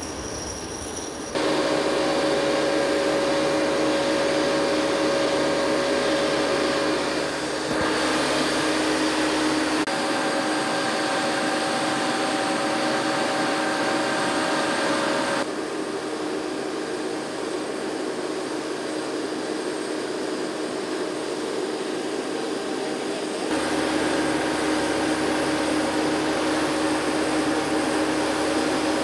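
Steady machine noise on an air base apron: a loud hum with several whining tones, like turbine or generator equipment running. It changes abruptly in level and pitch several times.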